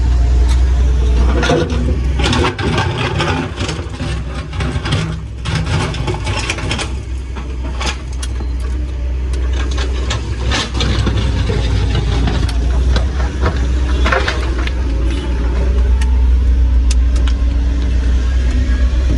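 Excavator's diesel engine running steadily under load, with clusters of sharp, irregular knocks and clatter from its hydraulic breaker working against hard rock.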